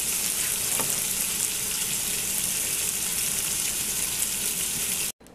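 Banana halves frying in butter and sugar in a stainless steel skillet, a steady sizzle that cuts off abruptly about five seconds in.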